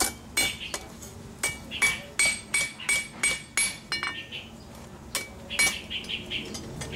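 Hand hammer striking a mild-steel wall hook on an anvil, each blow a sharp metallic clink that rings briefly. The blows come in quick runs of about three a second, with a short pause about four seconds in.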